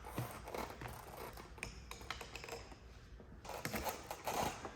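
Light clicks and knocks of plastic parts being handled as the clamps come off an EcoWater water softener's valve head, with a busier run of clicks near the end.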